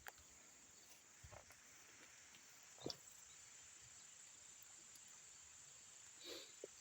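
Near silence: a faint, steady high-pitched hum, with a few soft rustles or knocks scattered through it.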